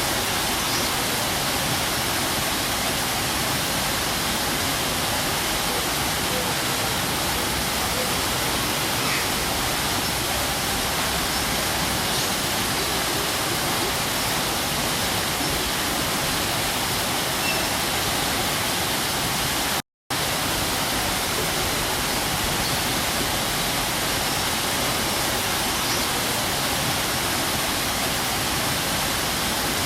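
Waterfall pouring steadily, a constant even rush of falling water. The sound cuts out for a split second about two-thirds of the way through, then resumes unchanged.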